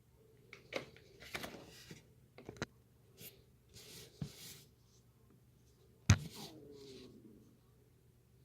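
Scattered soft rustles, scrapes and taps of a packed brown paper bag and cardboard box being handled, with one sharp knock about six seconds in.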